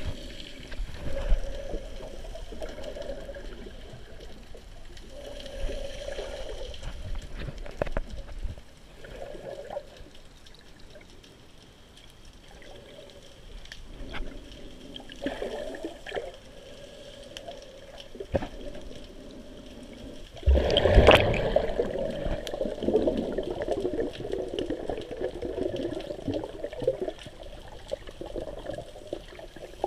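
Muffled water sloshing and gurgling around a camera held just under the sea surface, swelling and fading unevenly. About two-thirds of the way in comes a sudden, much louder rush of water that fades over a few seconds.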